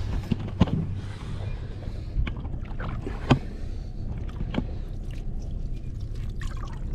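Boat's engine idling with a steady low hum under sloshing water, with a few sharp knocks, the loudest about three seconds in.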